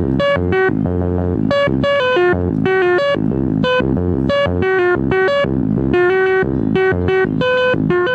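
Synthesizer music: a fast run of short, bright notes over lower sustained bass notes.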